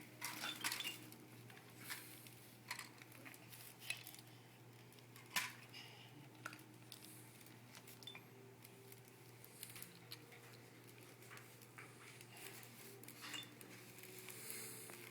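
Faint, irregular light clicks and taps, about a dozen, the sharpest about five seconds in, over a steady low hum.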